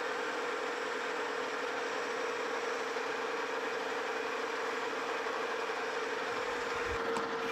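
Metal lathe running with a boring bar taking a very light finishing pass inside a gear blank's bore, sizing the hole for a press fit: a steady machine whine with one constant tone. A couple of knocks come near the end as the machine is shut down.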